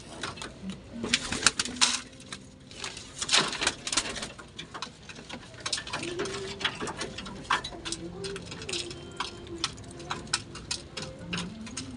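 Domestic pigeons pecking mixed seed from a clay bowl: many sharp clicks of beaks striking grain and bowl, densest in the first few seconds. Low pigeon cooing starts about halfway through and repeats, with a rising coo near the end.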